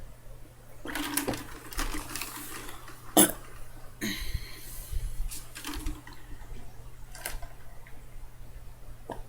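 Sips and swallows of iced water from a glass, with ice and glass clinking in between. A sharp clink about three seconds in is the loudest sound.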